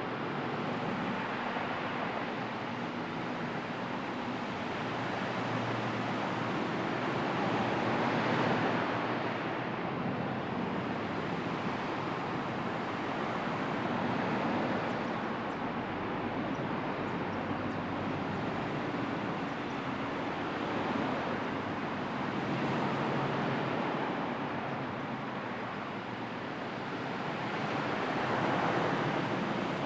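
Sea waves breaking and washing in with wind: a steady rush that swells and eases every several seconds.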